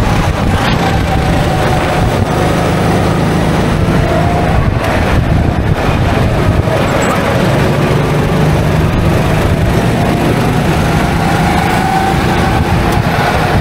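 Go-kart running on track, its motor note drifting up and down with speed over a loud, steady rumble.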